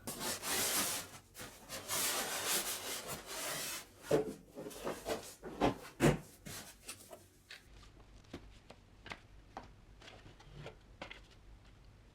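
Packaging being handled by hand: a few seconds of rustling and rubbing, then a run of sharp knocks, then light clicks and taps.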